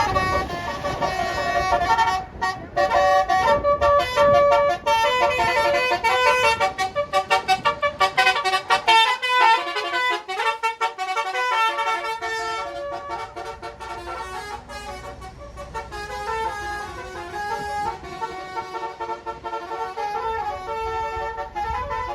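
Bus telolet horn, a Basuri multi-trumpet air horn, playing a melodic tune of stepping notes that hop up and down, with a run of rapid repeated toots partway through. Engine and road rumble runs underneath for most of it.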